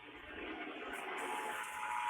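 Emergency Alert System attention signal, the steady two-tone alert sounded during a required monthly test, coming in under a hiss of static and growing louder.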